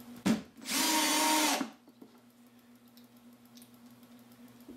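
A sharp tap as a screw is started into plywood, then an 18-volt cordless drill driving a 2-inch screw home in one steady-pitched run of about a second.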